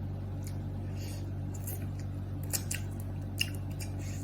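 A person chewing a mouthful of chicken, with a few short wet mouth clicks over a steady low hum.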